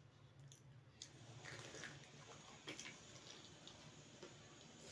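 Faint crunching, clicking and wet mouth sounds of a crisp golgappa (pani puri) filled with spiced water being bitten and chewed.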